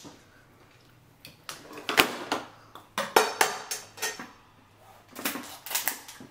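Eating sounds from shellfish being pulled apart by hand: sharp cracks, clicks and clatter of lobster and crab shells and utensils, in several quick runs with short pauses between.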